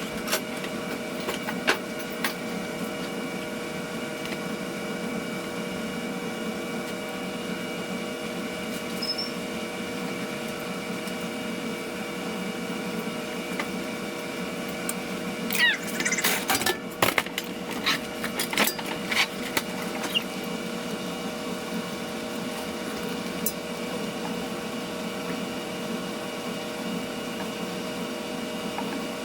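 Steady machine hum at an even pitch that holds unchanged throughout, with a cluster of sharp clicks and knocks about halfway through.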